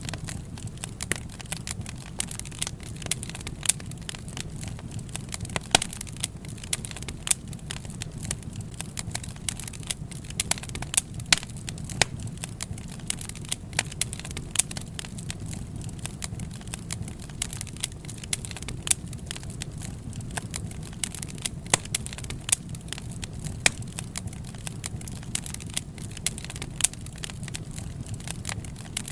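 Wood fire burning steadily, with constant irregular crackling and sharp pops from the burning wood over a low rumble of the flames.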